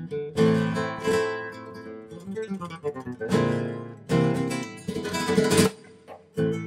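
Background music: an acoustic guitar playing plucked notes and strummed chords.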